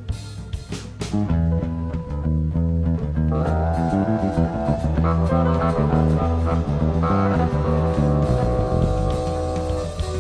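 Background rock music with guitar over a steady bass line and drums, growing fuller about a second in.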